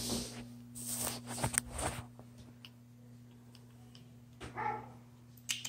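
Rustling and bumping as a husky puppy is picked up and held, then a brief whimper from the puppy about four and a half seconds in, over a steady low hum; a run of light clicks comes near the end.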